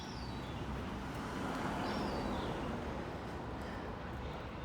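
A car passing: a steady rush of engine and tyre noise that swells to its loudest about two seconds in and then eases off.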